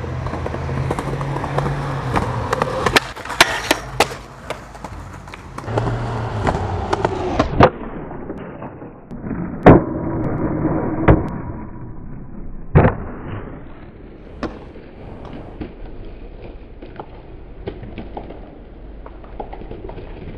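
Skateboard wheels rolling on concrete, with pushes and clicks. About ten seconds in there is a loud pop, then the deck scrapes along a tall kinked metal handrail in a backside lipslide. Sharp landing impacts follow, and then quieter rolling with scattered taps.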